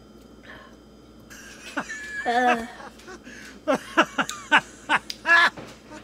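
A woman's wordless reaction to the sour taste of apple cider vinegar and lemon water: a short strained groan about two seconds in, then a quick run of short sharp coughs and laughs and another groan near the end.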